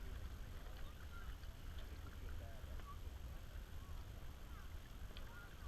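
Faint, indistinct voices over a steady low rumble.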